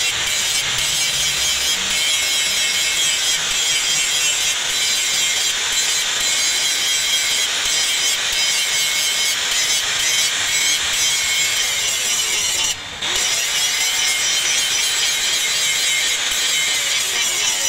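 Handheld electric angle grinder with an abrasive disc grinding the steel of an axe head, a steady, loud, high hiss of disc on metal. The sound dips briefly about two-thirds of the way through before the grinding resumes.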